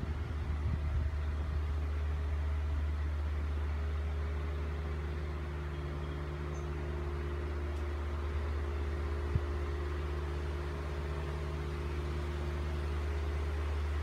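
A steady low mechanical hum with a fainter steady tone above it, and a single soft click about nine seconds in.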